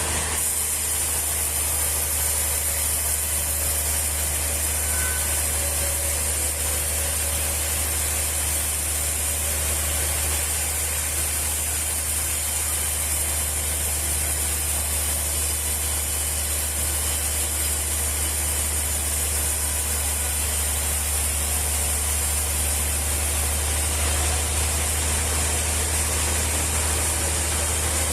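Sawmill machinery running steadily: a constant low engine-like hum under an even high hiss, with no pauses or changes in pitch.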